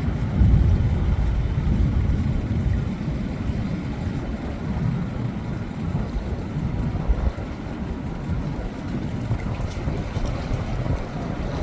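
Wind buffeting the microphone over the rumble of big ocean waves, a steady low noise with gusty swells, loudest about half a second in.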